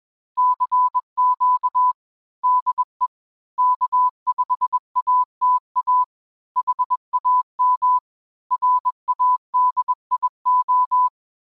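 Morse code: a single steady tone of about 1 kHz keyed on and off in short and long beeps (dits and dahs), sent in groups with short pauses between them.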